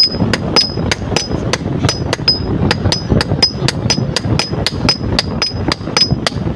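Blacksmith's hammer striking metal on an anvil in a steady rhythm, about three to four blows a second, most blows giving a short high ring.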